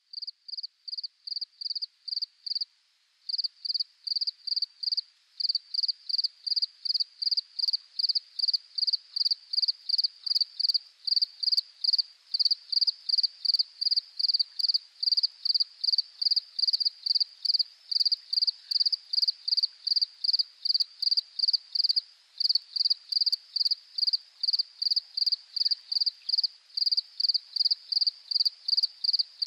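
A cricket chirping steadily at one high pitch, two to three chirps a second, with a brief pause about three seconds in.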